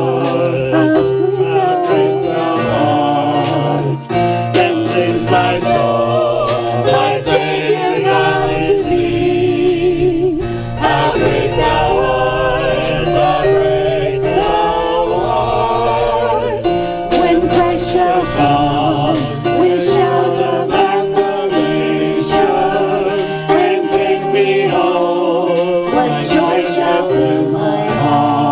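Worship music: singing with instrumental accompaniment, steady and continuous.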